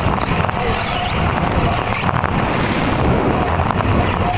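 An electric RC touring car heard from on board while racing: the motor's high whine rises several times as the car speeds up, over a steady low rumble and rattle from the chassis running on the track.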